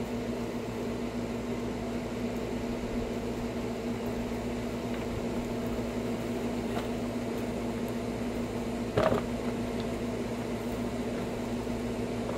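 A steady mechanical hum with a clear low tone, broken once by a short knock about nine seconds in.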